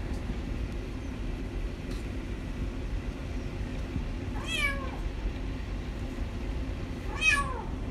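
Tortoiseshell domestic cat meowing twice while being held and stroked, two short falling meows about three seconds apart, over a steady low rumble.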